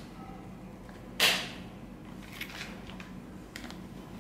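Plastic parts of a Portronics Clamp M phone holder being handled: one sharp snap about a second in, then a few faint clicks.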